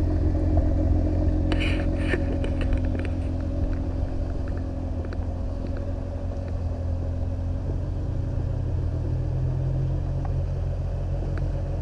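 A car engine idling steadily as a low, even rumble, with a few light clicks and rattles about two seconds in.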